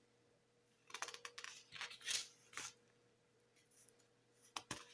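Pages of a thick booklet with stiff, card-like paper being turned and handled: a few short paper rustles and scrapes.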